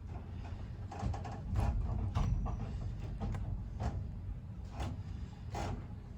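Cruise ship interior in a violent storm: a steady low rumble of the hull and machinery with scattered creaks, clicks and knocks from the ship's fittings as it rolls and pitches in heavy seas.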